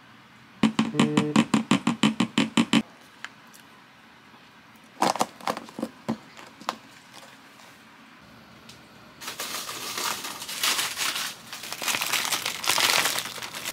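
An orange spoon knocking rapidly against a plastic container, about a dozen knocks in two seconds, then a few clicks as the lid of a plastic food container is pressed shut. From about nine seconds in, a plastic bag of frozen dumplings crinkles loudly as it is handled.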